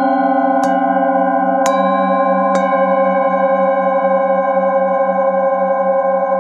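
Handheld singing bowl struck with a wooden mallet three times in the first three seconds, then ringing on as a steady, layered hum with a slow pulsing waver in its lowest tone.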